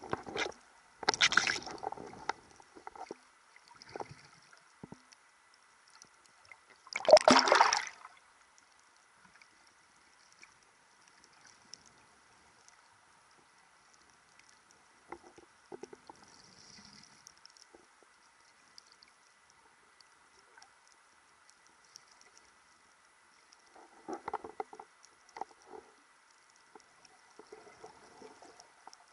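Muffled water sloshing and splashing heard through an underwater action camera's housing as a snorkeler swims: two loud splashing bursts, about a second in and about seven seconds in, scattered smaller knocks, and a cluster of them near the end, over a faint steady hiss.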